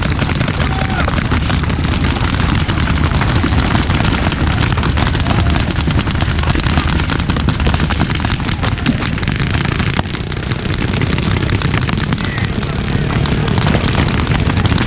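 Many paintball markers firing at once, a dense, irregular crackle of overlapping pops over a steady low rumble.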